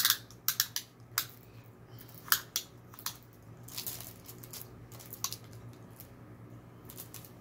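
Plastic packaging of a diamond painting kit being handled: sharp crinkles and clicks from the bags of drills and the canvas's plastic sleeve, busiest in the first three seconds and then softer rustling, over a low steady hum.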